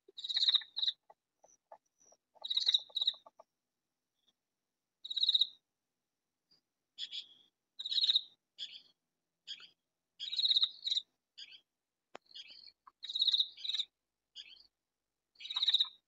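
Katydid calling: short, high calls of two or three quick pulses each, repeated about every two and a half seconds, with fainter calls in between.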